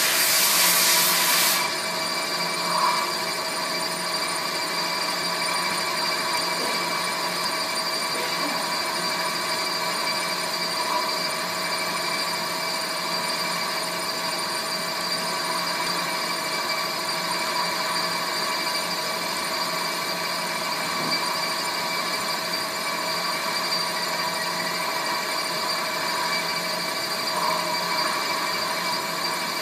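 Metal lathe running, turning a large metal disc while the tool cuts across its face: a steady machine hum with several steady whining tones. A brief loud hiss sounds in the first second and a half.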